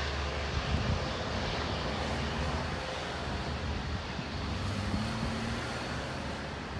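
Long Island Rail Road diesel train of bi-level coaches moving away along the track: a steady low rumble of locomotive engine and wheels on rail, slowly fading.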